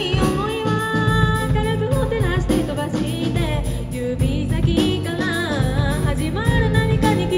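A live band playing a song through a PA: a woman singing over acoustic guitar, electric bass and a drum kit, with cymbals keeping a steady beat.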